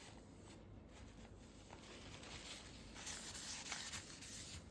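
Faint scraping and rustling from handling a knife and a ceramic sharpening stone, a little louder near the end.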